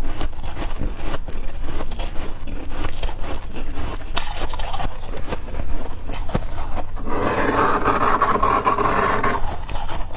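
A spoon scraping through soft humidifier frost, with many short crisp crunches. About seven seconds in, a denser, steadier scrape lasts roughly two seconds.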